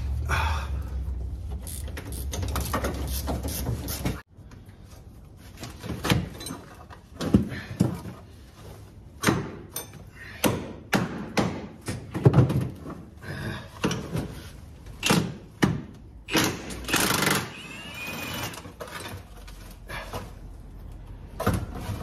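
Hand tools and metal parts knocking and clanking as seat-mount bolts are worked loose on a UTV frame: a string of separate sharp knocks about a second apart, with a longer scrape about seventeen seconds in. A steady low rumble at the start cuts off suddenly about four seconds in.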